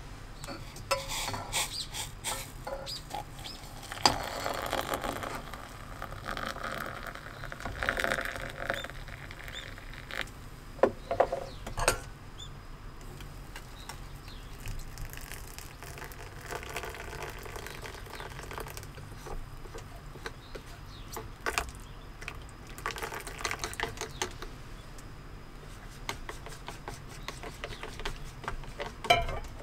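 Hot water poured from a metal camping pot into a metal mug and bowl in a few stretches, with sharp clinks of metal cookware and utensils in between. A steady low hum runs underneath.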